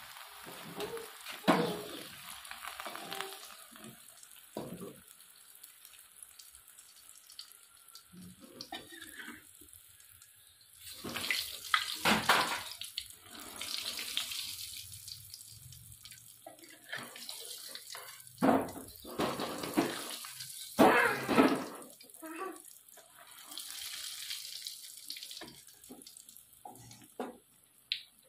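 Water from a tap running and splashing in a sink in uneven gushes, as when something is rinsed under it.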